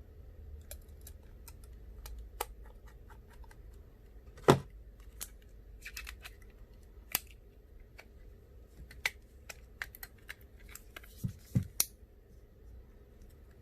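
Small tools and metal phone parts being handled during an iPhone 6s Plus repair: scattered light clicks and ticks, with a sharper knock about four and a half seconds in and a quick cluster of clicks near the end.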